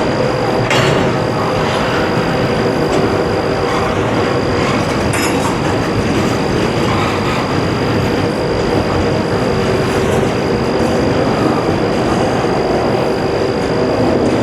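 Norfolk Southern intermodal freight train rolling past: a steady loud rumble of wheels on rail, with a couple of sharp clanks and a thin high steady whine running through it.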